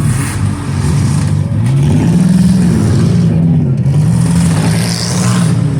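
Several autocross car engines revving and running together as the cars race, their pitches rising and falling and overlapping.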